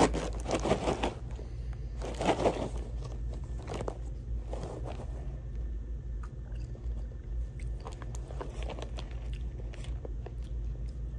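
Paper microwave-popcorn bag crinkling as it is pulled open, then popcorn being bitten and chewed with a crunch. The loudest rustles and crunches come in the first five seconds, and quieter chewing follows.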